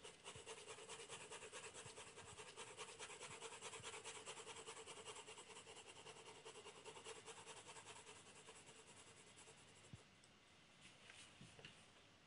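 Faint scratching of a pencil shading on drawing paper: quick, even back-and-forth hatching strokes that go on for about ten seconds and then stop.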